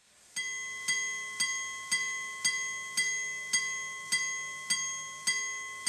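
Henry Moser minute-repeater pocket watch striking the hours on its gong: about eleven single, bell-like strikes of one pitch, roughly two a second, each ringing away before the next. The first comes about half a second in.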